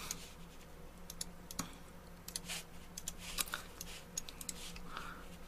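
Scattered light clicks and taps at an uneven pace, like typing on a keyboard, over a faint steady low hum.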